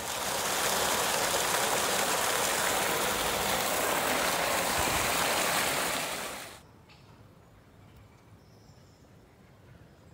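Steady rush of water pouring from a giant tap fountain and splashing into its basin. It cuts off abruptly about two-thirds of the way through, leaving only faint outdoor background.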